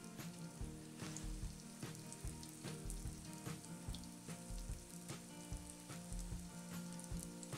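Breaded potato slices, coated in flour, egg and breadcrumbs, sizzling in shallow hot oil in a frying pan as they are sealed, with irregular small pops throughout.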